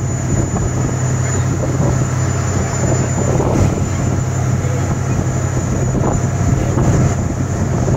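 Motorboat engine running steadily under way while towing a parasail, a constant low drone mixed with wind buffeting the microphone and the rush of the wake.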